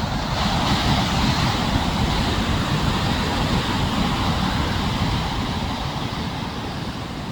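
A big sea wave breaking: a loud rush of surf that swells about half a second in and slowly eases off, with wind buffeting the microphone.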